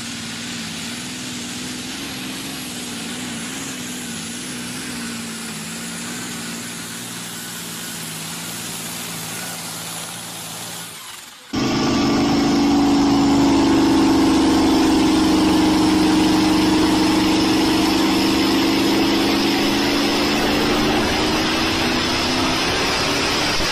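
A modified pulling tractor's engine running hard under load at a steady pitch. About eleven seconds in it cuts abruptly to a louder diesel Chevrolet Silverado pickup on a chassis dynamometer, held at full throttle with a steady high whine, its pitch sagging slowly near the end.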